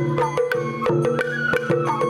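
Sawara-bayashi festival music: a bamboo flute melody, climbing about halfway through, over a quick, busy pattern of taiko drum strikes.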